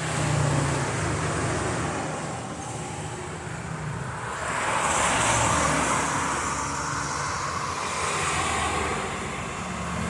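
Steady rumble of motor traffic, swelling and easing as vehicles pass.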